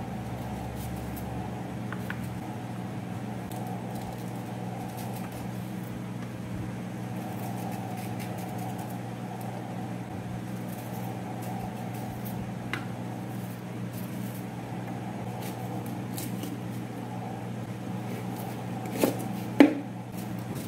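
A steady mechanical hum, with faint scattered clicks of a small knife working through green banana peel, and two louder short knocks near the end.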